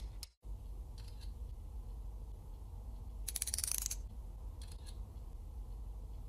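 A quick run of sharp ticks from a phone camera's zoom slider as it is dragged up to 10x, with a few fainter short clicks about a second in and near the end, over a low steady hum.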